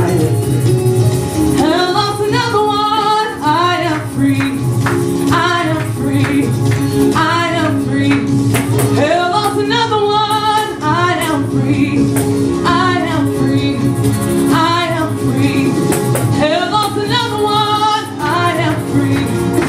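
A woman sings a gospel song into a handheld microphone, in phrases of long, wavering notes, over backing music with sustained held chords.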